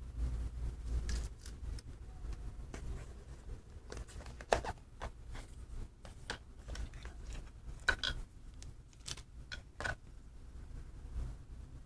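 Small clicks, taps and light scrapes of an FPV antenna and a receiver being handled in their foam-lined cardboard box, over a low rumble. The sharpest clicks come about four and a half and eight seconds in.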